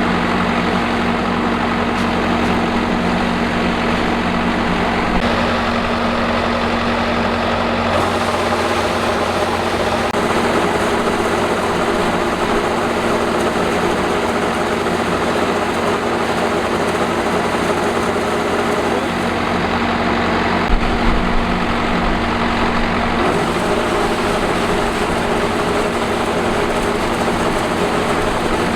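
Combine harvester engine running steadily in the rice field, with its pitch and tone shifting abruptly a few times.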